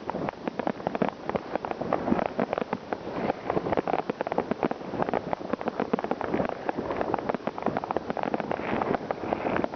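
New Year's Eve fireworks: a dense, continuous crackle of many overlapping bangs and firecracker reports, several a second, with no let-up.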